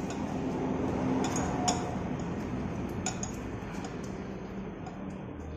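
A few scattered small metallic clicks and clinks as the parts of a motorcycle rear brake caliper are handled and worked loose, over a steady background hiss.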